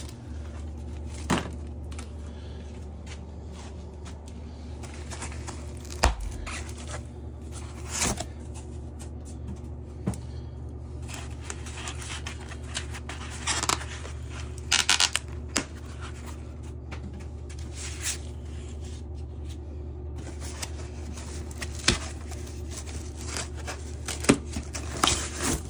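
Foam packaging wrap being pulled, scraped and torn off a bicycle's frame and crank, in a dozen short scattered rustles, rips and clicks over a steady low hum.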